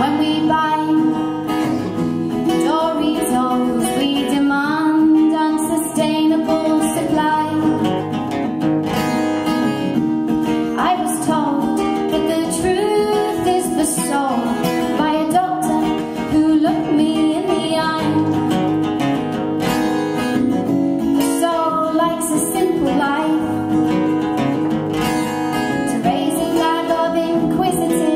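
Live folk song played on two acoustic guitars, with a woman singing.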